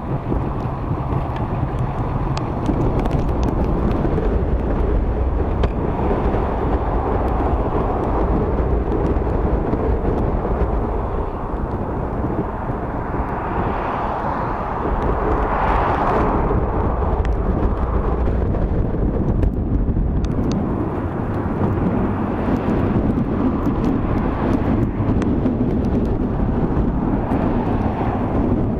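Wind and rain noise on a camera microphone covered by a plastic bag: a steady low rumble with scattered small ticks throughout.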